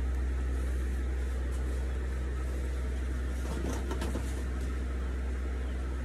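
Steady low background hum, with a brief faint rustle about three and a half seconds in.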